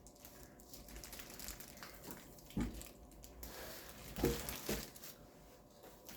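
Plastic grocery packaging crinkling as it is handled, with a few soft thumps, one about two and a half seconds in and two a little past four seconds.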